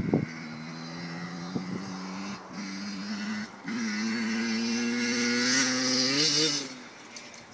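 Motocross bike engine running at a distance, its note steady and slowly growing louder. Near the end it revs up briefly, then fades away.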